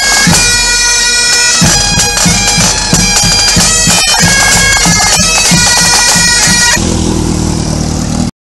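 Pipe band playing: bagpipes sounding steady drones and a melody over a regular beat of snare and bass drums. Near the end it cuts to a sport motorcycle's engine running.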